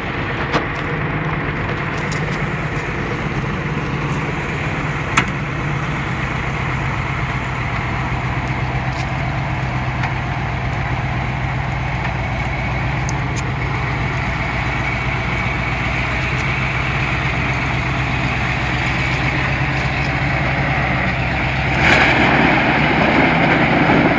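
Tractor engine running steadily, with a low even drone. It grows louder and rougher about 22 seconds in.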